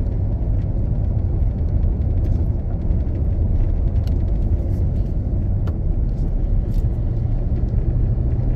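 Steady low rumble of a truck driving on a paved road, heard from inside the cab: engine and tyre noise, with a few faint clicks.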